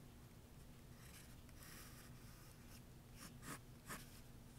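Faint scratching of a mechanical pencil's lead on paper in a few short strokes, with two light ticks near the end.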